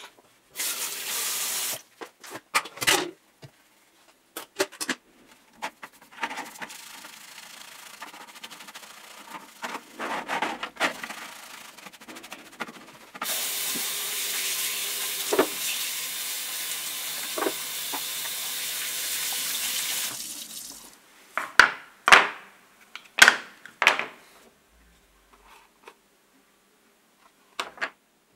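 A kitchen tap runs for about seven seconds onto soapy plastic power-tool housing halves in a metal sink tray, rinsing them, with a couple of knocks as the parts are handled under the stream. Before it come a brief spray and quieter scrubbing and rubbing with small clicks. After it come several sharp clatters of the plastic parts against the tray.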